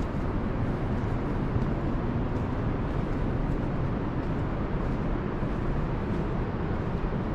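Steady low rumbling noise throughout, with faint footsteps on a dirt trail.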